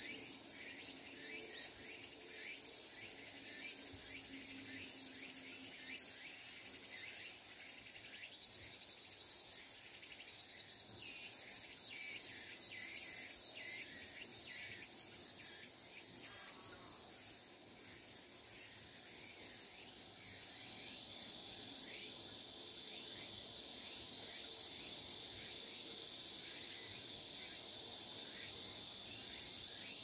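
Late-summer insect chorus: crickets chirping in quick repeated pulses over a steady high-pitched buzz of insects, which grows louder about two-thirds of the way in.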